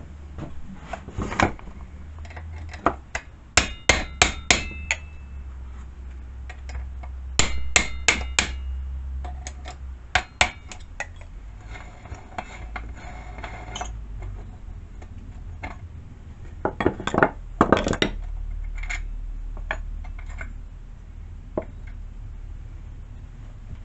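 Hammer striking a steel tool in quick bursts of three to five ringing blows, a few seconds apart, knocking a chainsaw clutch loose against a piston stop for a sprocket change.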